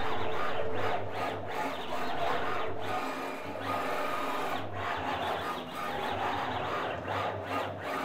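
CNC router running, its motors and spindle making an uneven mechanical whir with a low hum that comes and goes.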